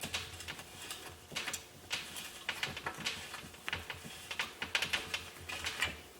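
Irregular light metallic clicks and rattles of hand tools and small parts being worked on a Schwinn Axum bicycle frame as the last part is taken off it.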